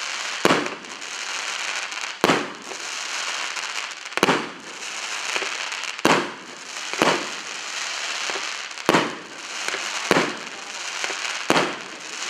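25-shot fireworks cake firing its shells in sequence: eight sharp bangs, one every one to two seconds, with a steady hiss between them.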